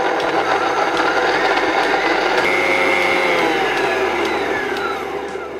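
Jug blender of a BQ 3-in-1 kitchen machine running, grinding walnuts, garlic and herbs with water into a smooth walnut sauce. The motor's pitch sinks a little in the second half, and the blender stops right at the end.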